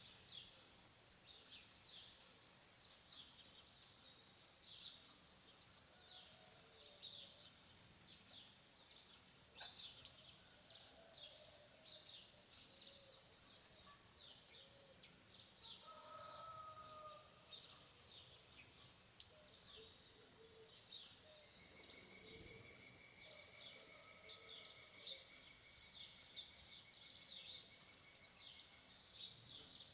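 Faint chorus of many small birds chirping without pause, with a rapid even trill held for about five seconds in the second half and a few lower calls scattered through.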